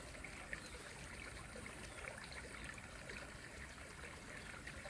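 Faint, steady outdoor background hiss, with a few scattered small ticks and one sharper click about half a second in.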